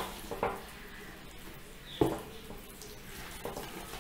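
Fingers creaming butter with salt and oil in a steel mixing bowl: soft squelching and smearing, with a sharp knock against the bowl about two seconds in.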